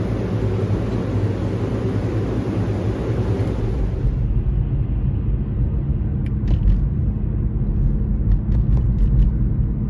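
Steady low rumble of a car, heard from inside the cabin. About four seconds in, the high hiss drops away suddenly, and a few light clicks follow.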